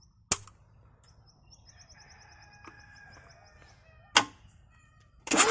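Two sharp clicks about four seconds apart, with faint bird calls between them. Just over five seconds in, the Kubota Z600 two-cylinder diesel starts cranking on the starter with its injectors out and a compression gauge held in one cylinder, a loud rhythmic churn of about three pulses a second, for a compression test.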